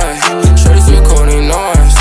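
Background music with a heavy, deep bass line whose notes drop in pitch as they start, about two a second, and a melodic line above it.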